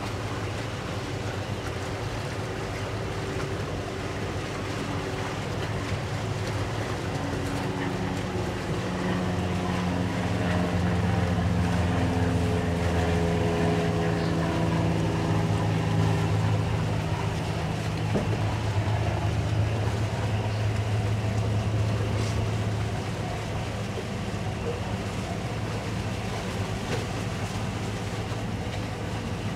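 Towboat's outboard engine running under way. It grows louder and its pitch shifts from about eight seconds in, then eases back after about twenty-two seconds. A steady hiss of wind and water runs underneath.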